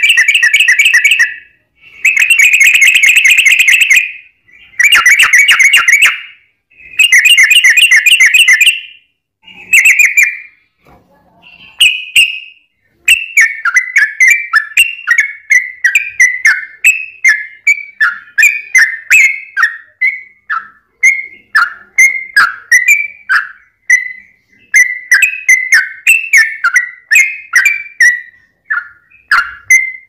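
Yellow-vented bulbul singing loudly. It opens with several one-to-two-second bursts of very fast rolled trill (the 'ropel' that keepers prize). From about halfway through it switches to a steady run of separate short slurred chirps, a few a second.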